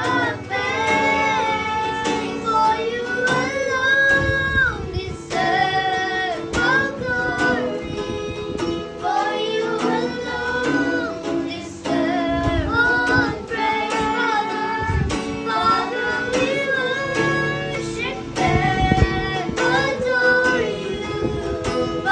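A worship song sung by children's voices with guitar accompaniment.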